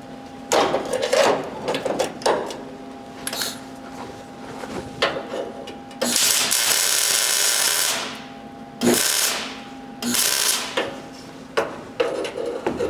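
A shop power tool run in several short bursts, the longest about two seconds, over a faint steady electrical hum.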